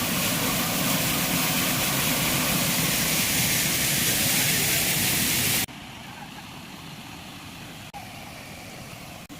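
Waterfall: a loud steady rush of falling water that drops suddenly to a much quieter rush about six seconds in.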